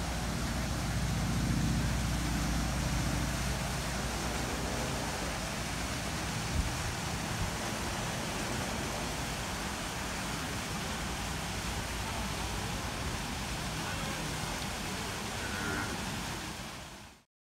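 Steady outdoor background noise: an even hiss with a low rumble, fuller in the first three seconds, and a single click about six and a half seconds in. It fades out abruptly just before the end.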